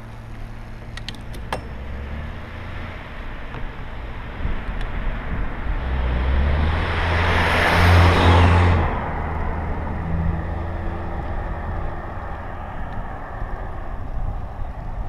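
A car passing close by: engine and tyre noise swell to a peak about eight seconds in, then fade quickly as it pulls away.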